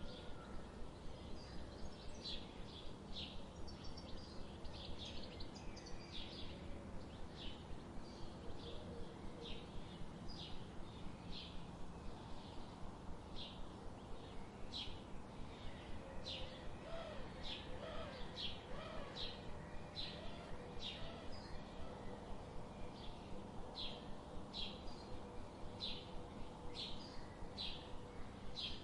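Birds chirping: short, high chirps repeat about once a second over a steady background hiss, with a few lower, wavering calls joining in midway.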